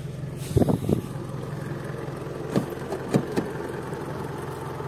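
A vehicle engine running steadily at low revs, with a few knocks: a quick cluster about half a second in, then three more later.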